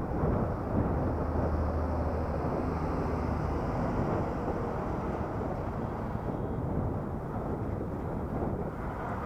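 Wind and road noise on a helmet-mounted action camera while riding, with a steady engine hum that is strongest in the first few seconds.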